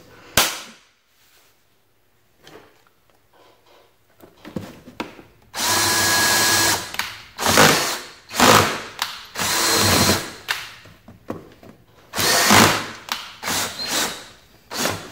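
DeWalt cordless drill with a half-inch bit boring through the side of a plastic box. It runs in a series of short bursts starting about five seconds in: first one steady run of about a second, then several shorter pulls of the trigger.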